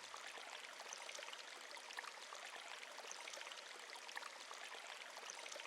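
Faint, steady trickle of a running stream: water burbling over stones, with small splashes and ticks scattered through it.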